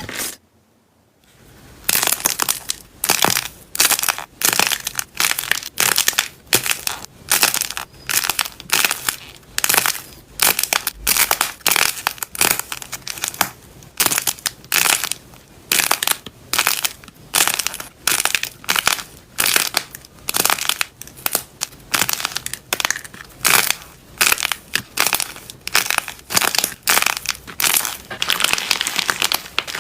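Slime being squeezed and pressed by hand, giving repeated crisp crunching crackles about twice a second after a brief pause near the start.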